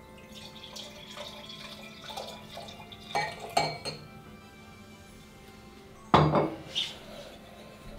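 Orange wine poured from a bottle into two wine glasses, with two sharp glassy clinks a little after three seconds. Just after six seconds comes a loud knock on the counter, then a lighter clink.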